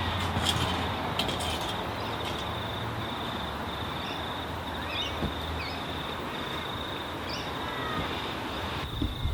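Forced-air waste oil burner firing into a dirt furnace: a steady rushing noise with a thin high whine. A few birds chirp faintly over it.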